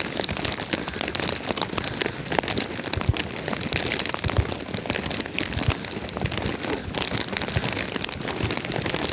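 Wind buffeting the microphone during a snowstorm, a steady rough hiss with irregular low thumps and crackles.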